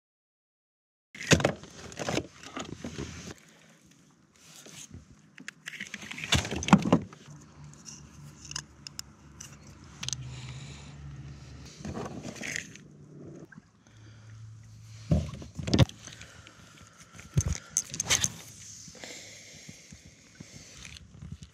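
Fishing gear being handled on a kayak: irregular clicks, rattles and knocks, with a few sharper knocks spread through, after about a second of dead silence at the start.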